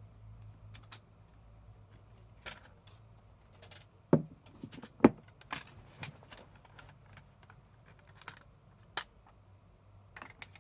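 Scattered light clicks and taps of hands working on laptop hardware, with two louder knocks about four and five seconds in, over a low steady hum.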